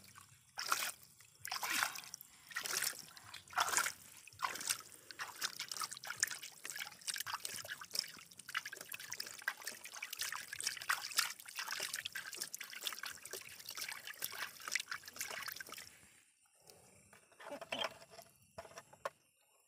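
Hands scooping and splashing shallow muddy water, with wet mud dribbling and splattering back into the puddle in many quick splashes that thin out near the end.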